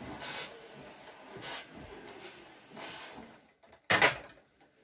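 Steam-generator iron hissing with steam as it slides over a shirt, swelling in a few puffs. About four seconds in comes a short, loud knock as the iron is set down on its base.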